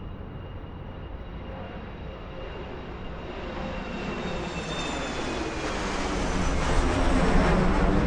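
Airplane approaching overhead, its engine noise growing steadily louder toward the end, with a thin high whine that slowly drops in pitch.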